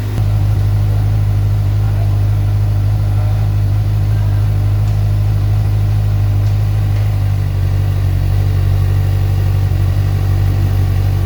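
Kawasaki ZX-6R inline-four motorcycle engine idling steadily while it warms up, with no revs.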